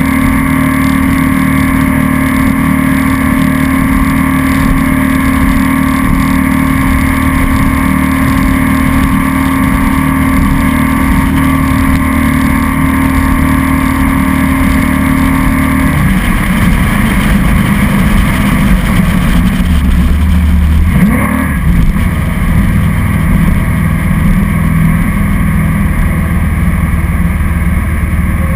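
Glastron Carlson CVX 20 jet boat running at speed, engine and water jet heard from on board with rushing spray. The engine note shifts about halfway through and dips and rises again a few seconds later as the boat turns.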